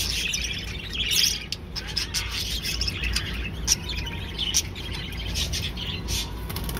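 A flock of budgerigars chirping and chattering, a continuous stream of short, high chirps.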